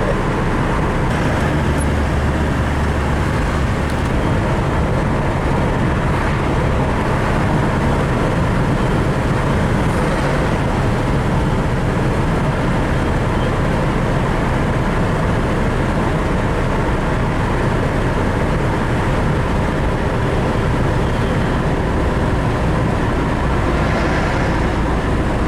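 Steady road and engine noise of a vehicle driving at highway speed, heard from inside the cabin.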